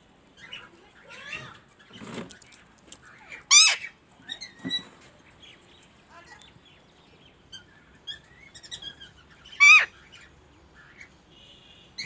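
Alexandrine parakeet giving two loud, harsh screeches, one about a third of the way in and another near the end, with softer chirps and short calls between them.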